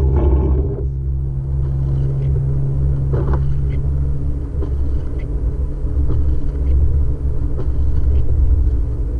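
Car driving, heard from inside the cabin: a steady low road rumble, with a low engine hum that drops away about four and a half seconds in, and faint scattered ticks over it.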